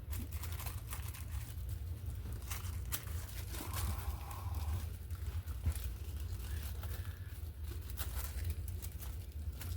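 Paper rustling and crinkling with scattered light taps and clicks as cut magazine and book-page pieces are handled and pressed down, over a steady low hum.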